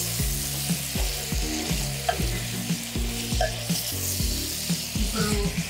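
Chopped tomatoes and goat tripe sizzling in a hot pot as a spatula stirs them, with repeated scrapes and knocks of the spatula against the pot.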